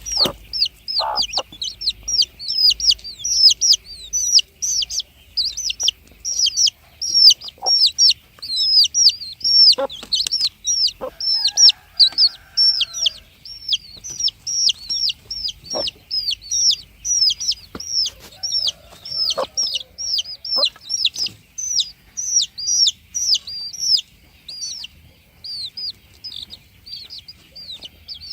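A flock of chicks peeping: a dense, continuous stream of short high-pitched peeps, several a second, with a few soft knocks among them.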